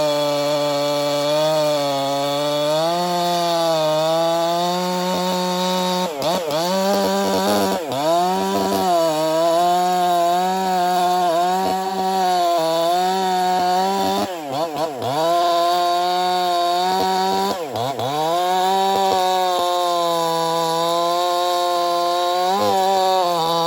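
Ported Echo CS-4910 two-stroke chainsaw running near full throttle, cutting through firewood logs. The revs drop briefly and swoop back up about five times.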